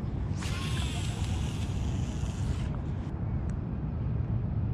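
Steady low wind rumble on the microphone, with a hissing rush lasting about two seconds just after the start.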